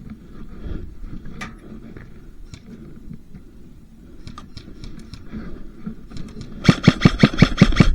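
Airsoft guns firing: scattered sharp clicks of shots through the arena, then, a little over a second before the end, a rapid string of about nine loud shots from a nearby airsoft rifle.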